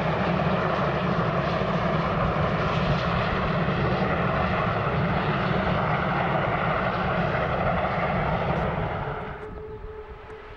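Two three-cylinder German freight steam locomotives, class 58 and class 44, working hard together at the head of a fully loaded freight train on a gradient: a loud, steady, dense rush of exhaust. About nine seconds in it cuts off sharply to a much quieter background with a faint steady tone.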